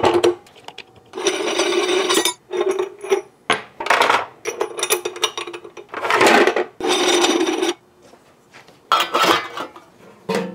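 Stainless steel parts of an electric meat grinder being fitted together by hand: metal scraping, rubbing and clinking on metal as the grinding head, plate and feed tray go on. It comes as a run of bursts a second or so long, with a quieter gap after about eight seconds and one more burst about a second later.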